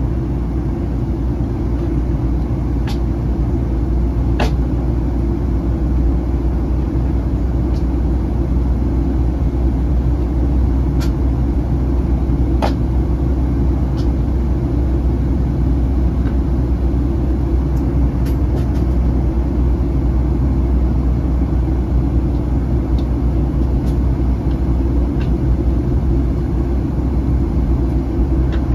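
Steady cabin roar of a Boeing 737-900 in descent, heard from a passenger seat: the CFM56 engines and the rush of air along the fuselage as a deep, even rumble. A few faint clicks sound now and then.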